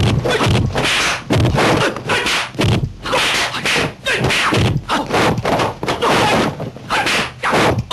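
Kung fu film fight sound effects: a fast run of dubbed punch and block hits, sharp thwacks several a second, mixed with the whooshes of swinging arms and kicks.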